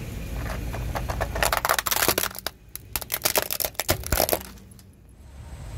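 Plastic toy pickup truck cracking and snapping as a car tyre rolls over and crushes it: a rapid run of sharp cracks for about four seconds, thickest near the start, over the low rumble of the car.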